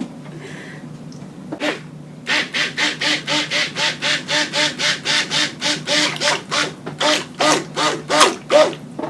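Stick blender being worked through lye and oils in a mixing container, making a steady run of short, rhythmic swishing and scraping strokes, about two and a half a second, as the soap batter is mixed. A single stroke comes first, and the run starts about two seconds in.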